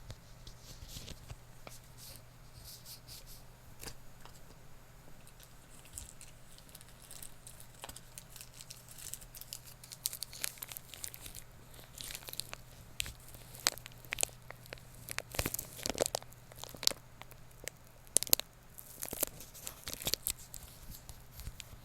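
Close-miked crinkling and crackling of material being handled, in irregular bursts of sharp little crackles that grow busier and louder from about halfway through. A faint steady low hum runs underneath.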